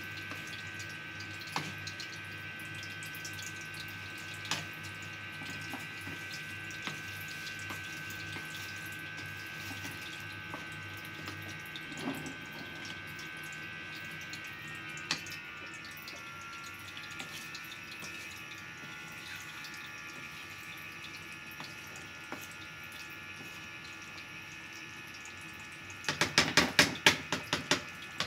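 Chicken curry simmering in a pan, a steady hiss and bubbling with scattered ticks. Near the end comes a quick run of about eight sharp knocks, like a wooden spatula tapped against the pan.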